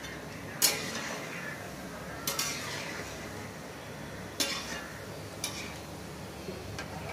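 Gulab jamun dough balls frying in hot oil in a steel kadhai: a steady sizzle, broken by five or six sharp clinks of a steel spatula against the pan as the balls are stirred, the loudest just over half a second in.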